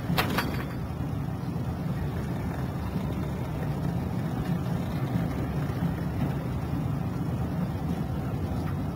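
Passenger train running, heard from inside the carriage as a steady low rumble. A short sharp clink with a brief ring comes a fraction of a second in.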